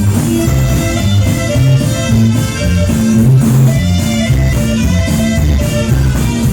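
Loud dance music, instrumental with no singing: a stepping bass line under guitar and higher held melody notes.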